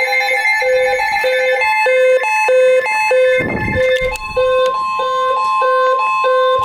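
Several electronic emergency alert tones sounding over one another: steady tones under beeps repeating about twice a second. A brief low whoosh cuts through about three and a half seconds in.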